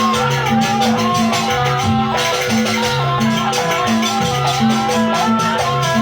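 Live Javanese jaranan dance music: a gamelan-style ensemble playing a fast, driving rhythm of low drum notes under a wavering, winding melody line, with bright jingling percussion on top.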